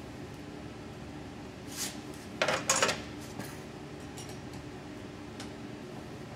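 Light metallic clinks and a short clatter of hand tools on a steel windshield mounting bracket as its bolt is tightened with a Phillips screwdriver and a 7/16-inch wrench. The loudest clatter comes about two and a half seconds in, followed by a few faint ticks.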